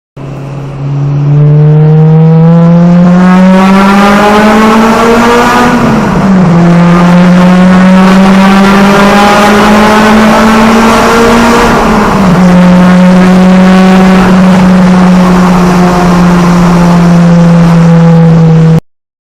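Honda Civic Type R (EK9) 1.6-litre B16B VTEC four-cylinder running through an aftermarket exhaust, accelerating with the note climbing to high revs. It shifts up twice, about six and twelve seconds in, then holds a steady note until it cuts off suddenly near the end.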